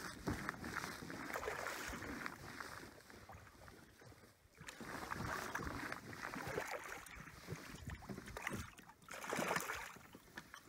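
Small waves lapping and splashing against a kayak hull, coming and going unevenly, with a brief lull about four seconds in, and some wind on the microphone.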